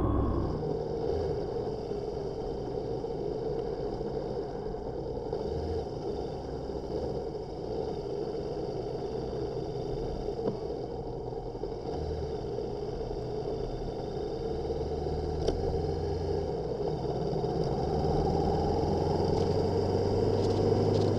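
Motorcycle running on the move, its engine heard with steady wind and road noise; in the last few seconds the engine note rises as it speeds up.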